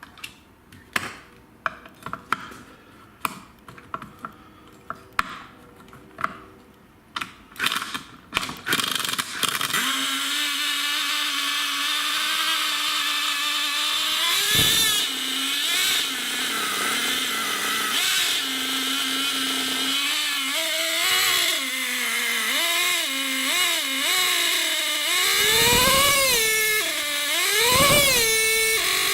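Warm CXP 15 nitro RC engine being cranked in a series of short bursts, then catching about a third of the way in and running steadily. In the last third it revs up and down again and again. It starts and holds running while hot, a sign that the hose-clamp sleeve pinch has restored enough compression.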